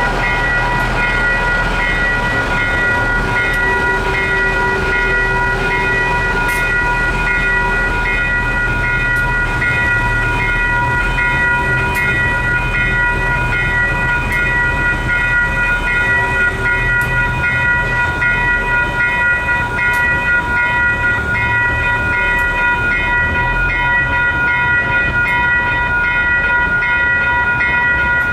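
Railroad crossing warning bells ringing steadily and rapidly while a passenger train rolls past the crossing, its low rumble underneath. The bells keep ringing after the last car clears the road.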